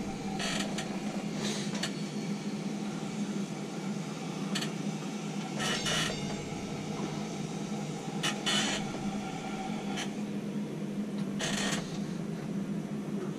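Steady low mechanical hum from the tower crane, with about eight short sharp crackles or clicks at irregular intervals.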